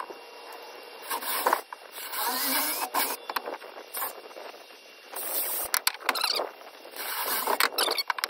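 Cordless drill running in several short bursts, boring pilot holes into small pine blocks, with squeaky bit-in-wood noise and knocks from the wood pieces being handled.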